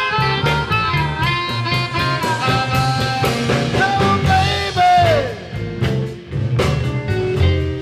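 A blues band playing an instrumental passage: electric guitar, drum kit and upright bass, with blues harmonica at the start. About five seconds in, a held note bends downward, and the band eases off briefly before coming back in.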